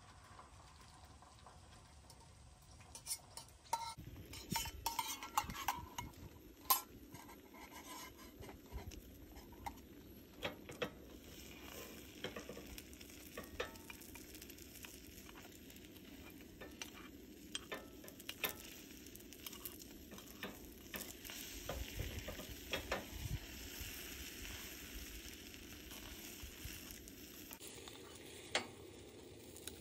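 Beaten egg sizzling in a hot aluminium hot-sandwich maker over a gas stove, with a spoon clicking and scraping against the metal pan as the egg is stirred.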